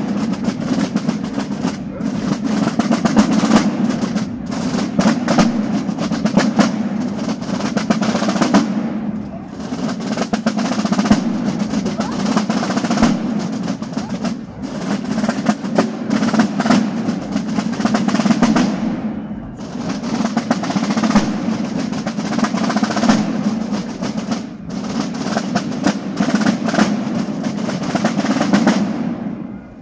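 A corps of Basel drums, wooden rope-tensioned side drums, playing a Fasnacht march together in fast rolls and strokes, with no pipes. The drumming eases off briefly about every five seconds between phrases.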